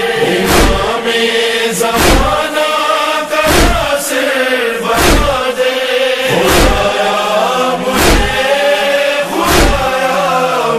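Noha backing between verses: a male chorus holding a chanted drone in harmony, with a deep chest-beating (matam) thump about every second and a half.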